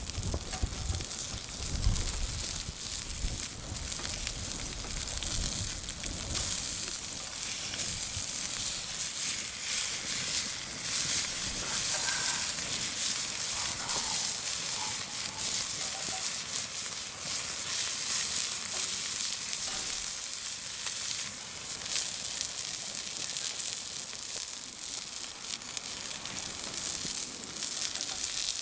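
Hamburger steak sizzling on an iron griddle over a wood fire: a steady frying hiss with many small pops and crackles.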